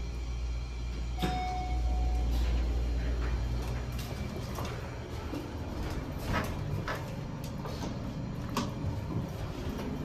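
Passenger elevator: a single chime tone about a second in, then the car doors sliding, with clicks and knocks from the door mechanism. A low rumble runs under the first few seconds and stops about four seconds in.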